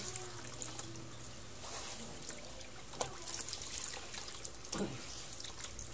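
Water trickling from a garden hose over a wet shih tzu puppy and splashing into a plastic tub of water as the soap is rinsed off.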